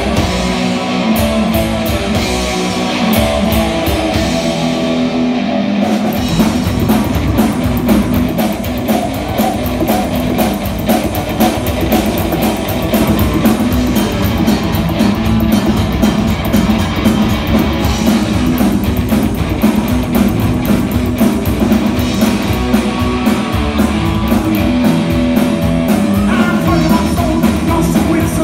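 Live rock and roll band playing an instrumental passage on electric guitars, upright double bass and drum kit. The low end and drums fill in about six seconds in, then the full band plays on with a steady beat.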